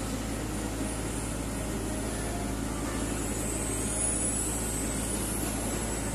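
Diesel excavator engine idling steadily, a constant low hum with no breaks.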